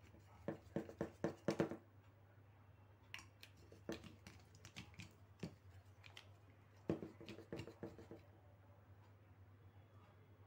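A pencil worked rapidly against an aluminium drink can's pull-tab, making quick runs of clicks and scrapes in three bursts, the last ending about two seconds before the end. A low steady hum runs underneath.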